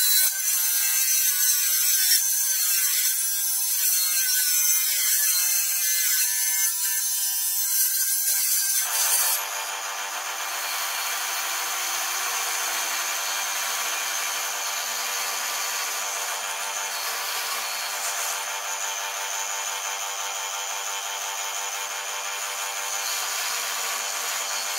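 For about the first nine seconds, a loud, high-pitched power tool works along a clamped wooden board. It then gives way suddenly to the steady, quieter hum of a benchtop drill press running as it bores holes in a wooden rail.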